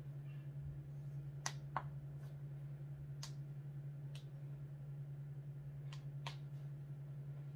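Steady low electrical hum with about seven short, sharp clicks scattered through it, the loudest two close together about a second and a half in.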